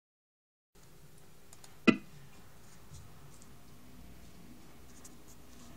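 A single sharp click about two seconds in, over faint room hiss, with a few faint ticks.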